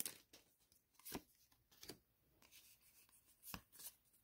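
Near silence with a few faint, light taps and rubs of a stack of Pokémon trading cards being handled by hand.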